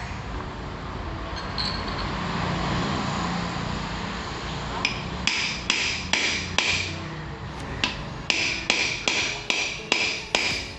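Hammer striking metal gearbox parts: a run of about a dozen ringing blows, two to three a second, starting about halfway through.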